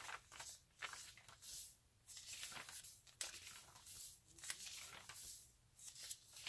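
Paper pages of a bullet journal notebook being flipped by hand: a string of soft papery swishes and rustles, about one or two page turns a second.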